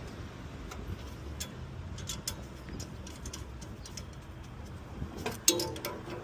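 Scattered light clicks and taps over a steady low hum, with a brief pitched sound near the end.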